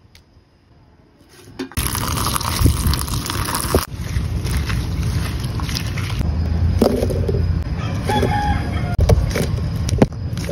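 A rooster crowing partway through, over a loud, steady rushing noise with a low rumble that comes in about two seconds in.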